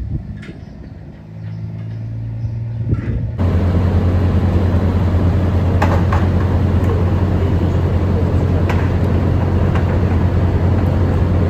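An engine or motor running steadily with a deep hum. It suddenly becomes much louder and fuller about three seconds in, with a few faint clicks over it.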